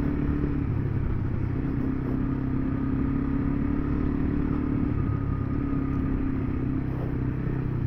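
Single-cylinder dual-sport motorcycle engine running at a steady cruise, an even drone with road and wind noise underneath.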